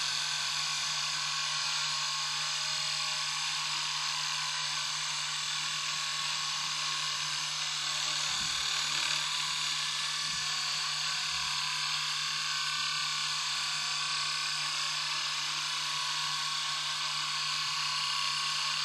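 Steady whirring hiss of hurricane balls, two welded steel ball bearings, spinning fast on a mirror, holding an even level throughout.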